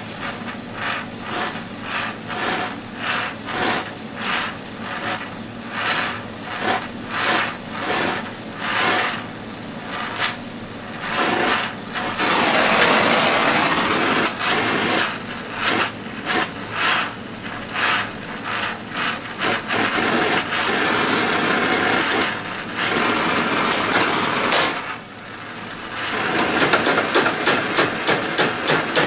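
Oxy-acetylene torch hissing as it heats a small steel bucket tooth, pulsing about twice a second at first and then a long steady hiss. Near the end a ball-peen hammer taps the red-hot steel in a quick run of sharp, ringing strikes, about three a second.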